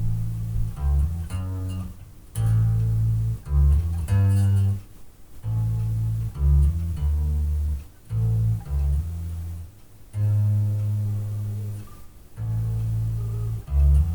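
Electric bass guitar played through an amplifier cabinet: a walking blues line of low plucked notes, played as a repeating phrase with brief pauses every two to three seconds.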